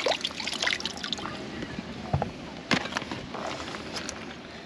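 Shallow rock-pool seawater trickling and splashing as it is stirred by hand, with two sharp knocks a little after two seconds in.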